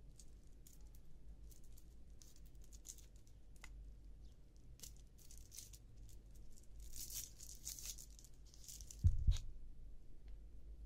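Plastic wrapper of a drinking straw being torn open and crinkled, in scattered small crackles that grow thick near the middle. Two light knocks on the table follow about nine seconds in.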